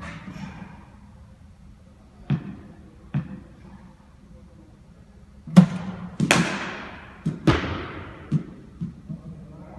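Sharp knocks of a hard cricket ball, off a BOLA bowling machine, the bat and the hard floor and walls of a sports hall, each one echoing in the hall. Two lighter knocks come first, then a cluster of loud ones about halfway through, and fainter ones near the end.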